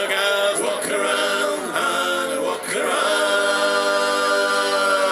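Male voices singing a sea shanty together, ending in a long held chord about three seconds in.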